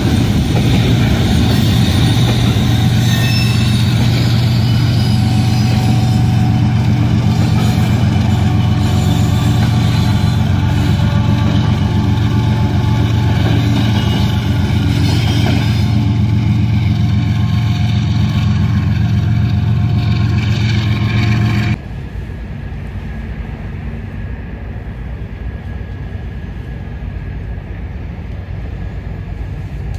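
Diesel freight locomotive with a double-stack container train, a steady low engine drone with rumble. It cuts off abruptly about three-quarters of the way through, leaving quieter, even rail-yard background.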